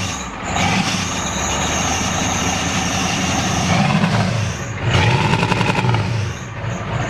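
1993 Ford F-250's non-turbo 7.3L IDI V8 diesel running rough and uneven, missing badly. The owner suspects the injection timing is off despite new injectors.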